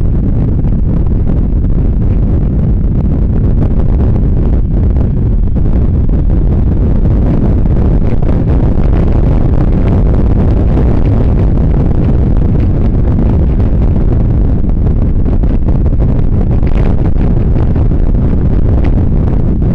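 Loud, steady wind buffeting on a camera's internal microphone, carried on a Kawasaki GTR1400 touring motorcycle riding at road speed.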